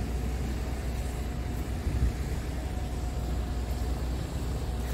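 Scania R tractor unit's diesel engine idling with a steady low hum.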